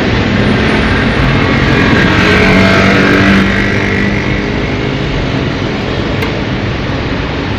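Steady road-traffic noise, with a vehicle passing that swells about two seconds in and fades by about four seconds.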